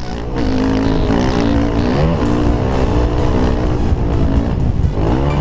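Motocross bike engine revving hard on a dirt track, its pitch climbing and then dropping several times with throttle and gear changes, over a dense rushing noise.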